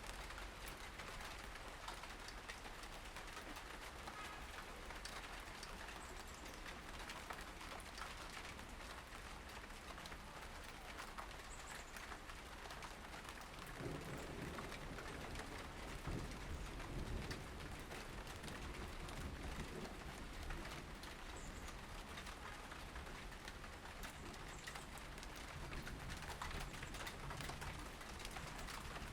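Field recorder ambience: a steady hiss with small scattered ticks and occasional faint bird calls. Wind gusts on the microphone rumble low for a few seconds about halfway through.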